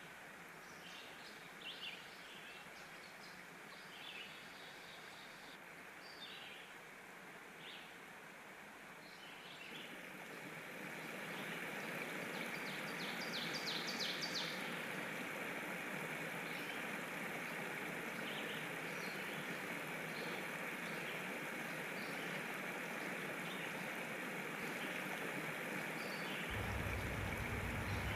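Birds chirping over a steady rushing noise, like outdoor ambience. The noise grows louder about a third of the way in, and a low hum joins near the end.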